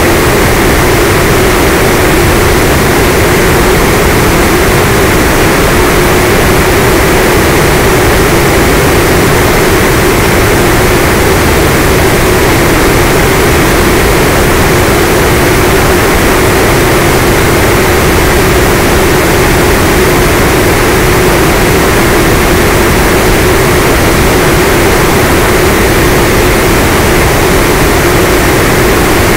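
Steady loud hum of a model airplane's electric motor and propeller in cruise flight. It is heard from on board, mixed with even wind noise over the airframe.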